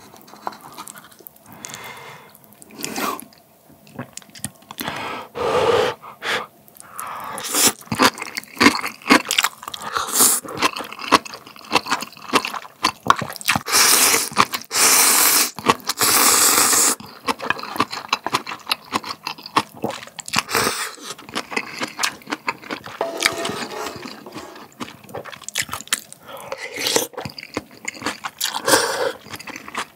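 Close-miked eating of spicy ramen with kimchi: noodles slurped in long, loud pulls, the longest about fourteen seconds in and more near the end, between bouts of chewing and clicks and scrapes of metal tongs on a wooden ladle.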